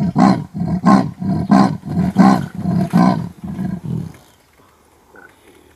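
A big cat calling in a fast series of rough, low calls, about three a second, that stops about four seconds in.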